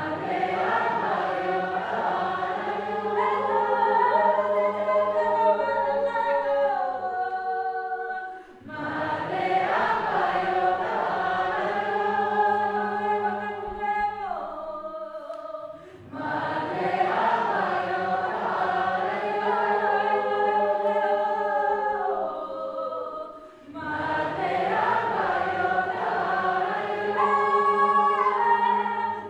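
Unaccompanied group of men and women singing together, a cappella, in four long phrases of about eight seconds each, with a short break for breath between them.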